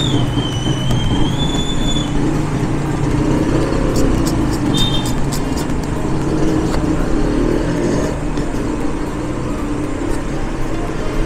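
Steady low mechanical rumble like a vehicle engine running, with a short high whistle near the start and a few light clicks about four to five seconds in.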